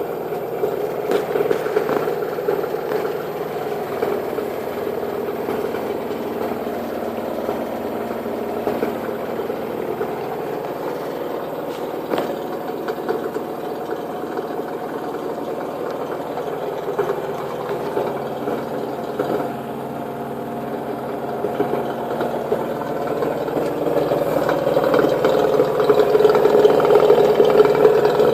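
Washing machine spinning with a loud, steady mechanical hum that grows louder near the end. It is an abnormal spin noise whose cause the owner does not know.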